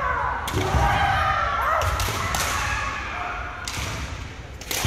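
Kendo bout: bamboo shinai clacking in sharp strikes, feet stamping on a wooden gym floor with low thuds, and fighters' kiai shouts rising and falling in pitch.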